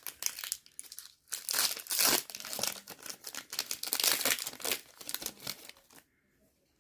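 Foil booster-pack wrapper of a Pokémon card pack crinkling and tearing as it is ripped open by hand, a quick run of rustles that stops about six seconds in.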